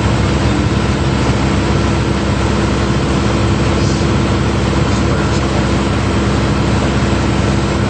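Light propeller airplane's piston engine and propeller droning steadily, heard from inside the cabin, with a constant low hum.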